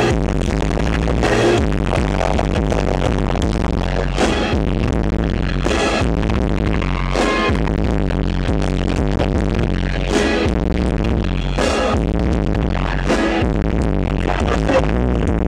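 Live band music played loud through a concert PA, recorded from the crowd on a camera microphone: a boomy, distorted mix of heavy bass with strong beats about every second and a half.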